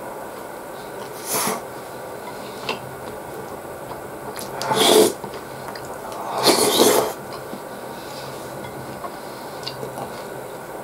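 A person eating beef stew and bread with a spoon: a few short breathy mouth noises, the loudest about five and seven seconds in, with light clicks of the spoon against the dish over a steady low hum.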